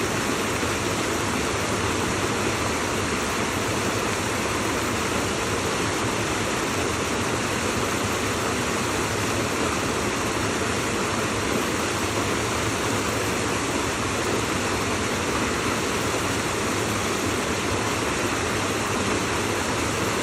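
Steady rushing water, a dense even roar that holds at one level without change.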